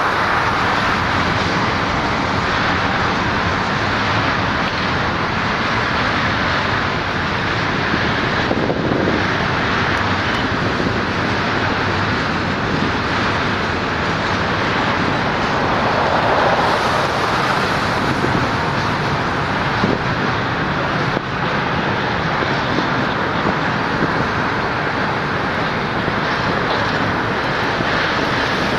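Intermodal freight train's container cars rolling across a railway bridge: a steady rush of wheels on rail, with road traffic passing below.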